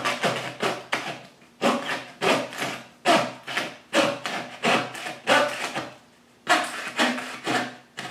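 Hand fret saw cutting through a stacked veneer pack on a bird's-beak plate, with quick up-and-down strokes about three a second and a short pause about six seconds in.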